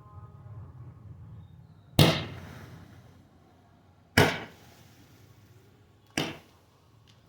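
Firework shots going off: three sharp bangs about two seconds apart, each trailing off over about a second, the last one weaker.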